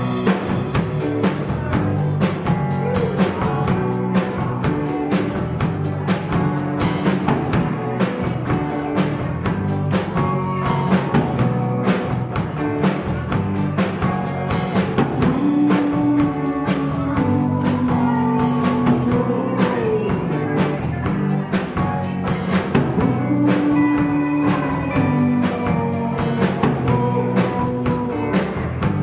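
Live rock band playing: two electric guitars, electric bass and a drum kit, with a steady beat from the drums.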